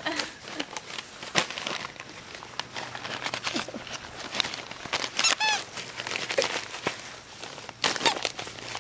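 Dog nosing and tearing into a paper-wrapped package, the paper crinkling and rustling in irregular bursts, with one short high squeak about five seconds in.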